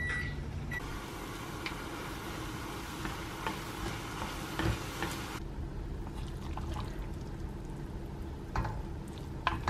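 Instant ramen noodles sizzling in a small saucepan as wooden chopsticks stir them. The sizzle cuts off abruptly about halfway through, and a few light clicks of the chopsticks against the pot follow near the end.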